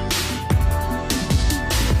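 Electronic background music with heavy bass drops that fall in pitch, hi-hats and a steady beat.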